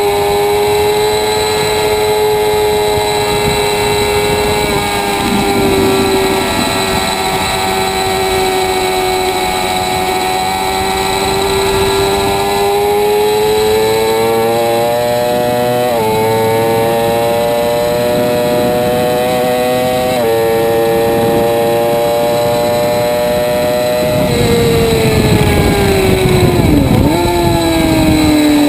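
Sport motorcycle engine running hard at high revs on a racetrack, with wind rush over the bike. The engine pitch holds high and shifts a few times with gear changes, with a sharp drop and recovery near the end as it slows for a corner.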